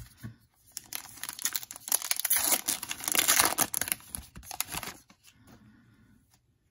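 Foil wrapper of a Panini Contenders football card pack being torn open and crinkled by hand. Loudest about two to four seconds in, then it fades to a faint rustle.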